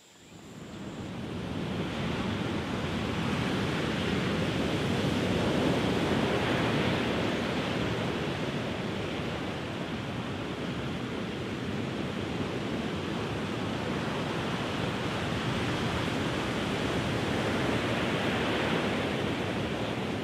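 Ocean surf washing over rocks, a steady rushing that fades in over the first two seconds.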